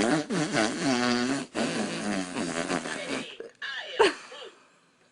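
Long, loud fart noise wavering up and down in pitch for about three seconds, followed by a short sharp squeak that glides downward about four seconds in.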